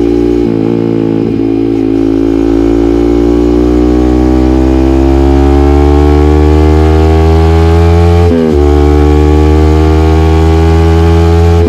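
Yamaha MT-15's single-cylinder engine breathing through an aftermarket SC Project muffler, pulling under load with its pitch climbing slowly for several seconds. About two-thirds of the way through the revs drop sharply for a gear change, then climb again.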